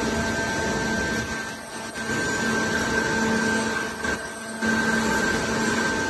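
Horizontal automatic baler's hydraulic power unit running: a steady machine drone with a constant hum, dipping briefly twice.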